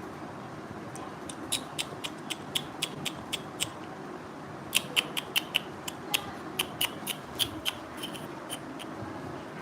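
A rapid series of short, sharp high-pitched clicks or squeaks, about four a second, in two runs with a pause of about a second between them.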